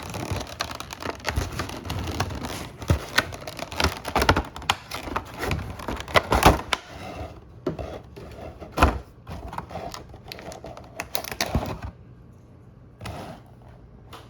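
Hands opening a cardboard collection box and its plastic packaging: a busy run of crinkling, clicks and taps that dies down about twelve seconds in, with one more tap shortly after.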